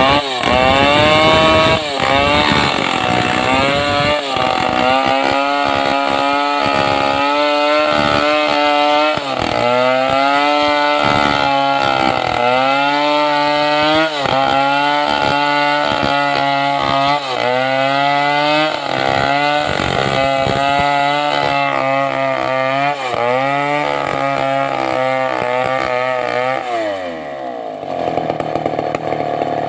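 Stihl 070 two-stroke chainsaw ripping a sengon log lengthwise, its engine pitch repeatedly sagging under load and picking up again. Near the end the throttle is released and the engine winds down to idle.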